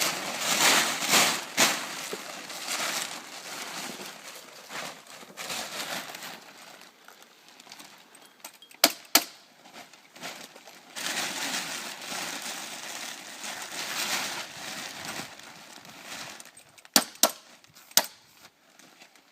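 A plastic tarp rustling as it is pulled into place, with sharp staple-gun shots fastening it: two close together about nine seconds in and three more near the end.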